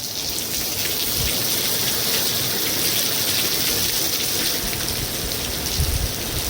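Steady, heavy rain pattering on a metal roof, a dense even hiss of many drop ticks.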